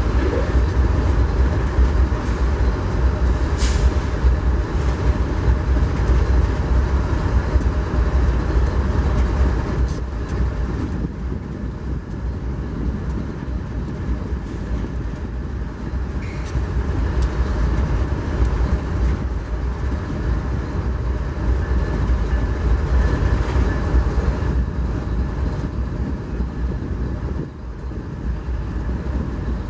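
GE C44-9W diesel locomotives, each with a 16-cylinder GE FDL engine, running with a steady deep rumble as they move slowly through the yard. A brief hiss of air sounds about four seconds in.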